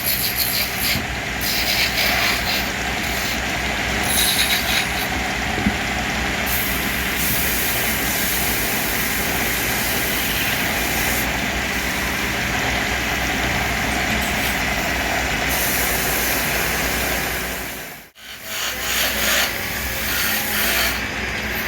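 Wood lathe running, with a turning chisel cutting and scraping the spinning wood over a steady motor hum. The sound drops out briefly near the end.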